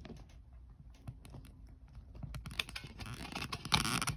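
Handling noise close to the microphone: a run of faint small clicks and taps, growing into louder rustling and scraping over the last two seconds.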